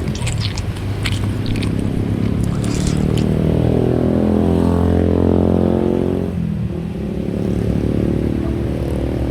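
A motor vehicle engine nearby, swelling and rising in pitch to its loudest about five seconds in, then dropping away. A few sharp eating clicks sound in the first few seconds.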